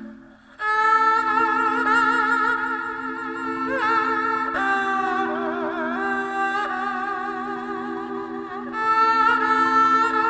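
Haegeum, the Korean two-stringed fiddle, bowing a slow melody with wide vibrato, coming in about half a second in over low held marimba notes.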